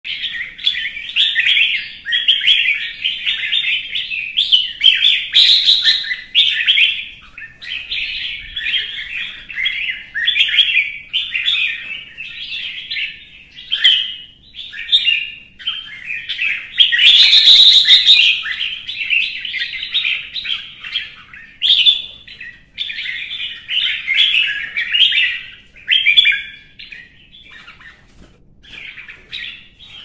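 Red-whiskered bulbul singing a fast, nearly unbroken string of chirpy challenge phrases: the fired-up fighting song of a provoked bird. A louder burst comes a little past halfway.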